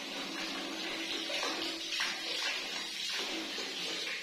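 Water running steadily from a handheld shower head and splashing.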